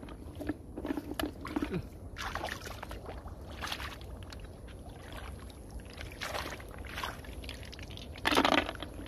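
Hands splashing and sloshing in shallow muddy water while gathering snails, in a string of short separate splashes, with a louder burst of sound a little after eight seconds in.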